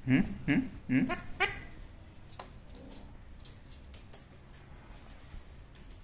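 Indian ringneck parakeet giving four short, quick calls in the first second and a half, followed by faint scattered clicks.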